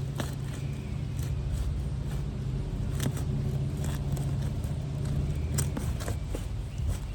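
Steady low hum of an idling engine, with scattered sharp clicks and cracks from asphalt roof shingles being worked loose for a repair.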